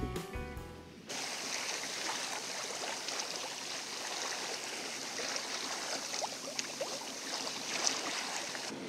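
Water rushing and splashing along a moving sailboat's hull as it cuts through small waves, a steady wash. Background music fades out in the first second.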